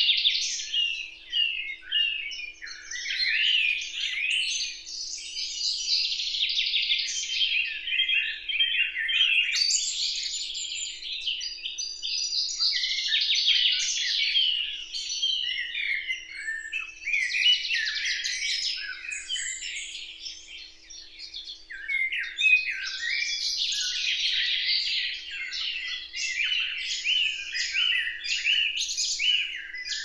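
Several songbirds singing and chirping at once, a dense run of overlapping high phrases that goes on with only brief lulls.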